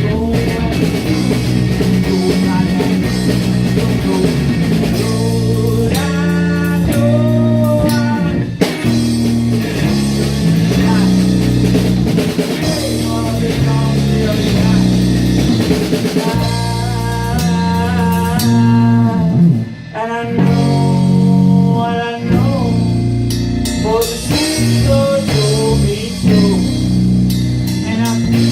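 Live rock band playing a song: drum kit, bass guitar and electric guitar, with bending lead lines over a steady beat.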